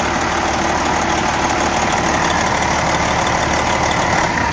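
Scania V8 diesel engine with a mechanical injection pump, idling steadily and running normally.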